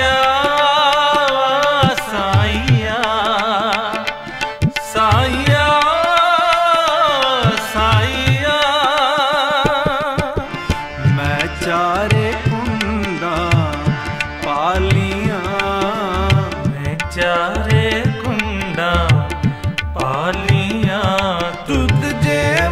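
Sikh kirtan music: tabla playing a steady rhythm of low and ringing strokes under a harmonium melody, with a wordless sung line that wavers and bends in pitch.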